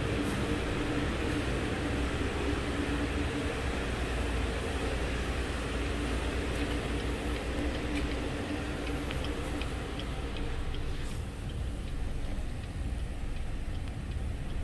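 2014 Cadillac CTS's 2.0-litre turbocharged four-cylinder engine idling steadily, with faint ticking from the hazard-light flasher coming through about midway.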